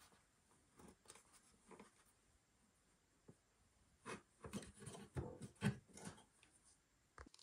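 Quiet handling noises at a sliding miter saw: scattered light clicks and taps, with a cluster of louder knocks and rustles between about four and six seconds in and a sharp click near the end. The saw motor is not running.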